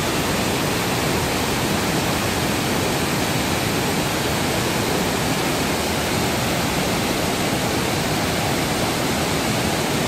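Steady rushing of a large multi-tiered waterfall, water pouring over rock ledges into a pool.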